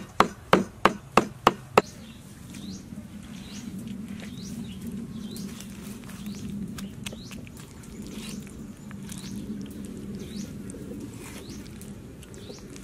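Cleaver chopping fish flesh on a wooden chopping block, about three sharp strikes a second, stopping about two seconds in. After that, small birds chirp faintly over a low steady hum.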